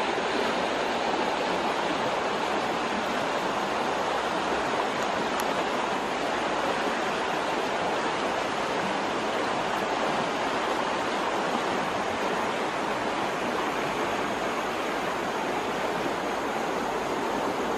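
Steady rushing of a flowing stream, an even unbroken noise.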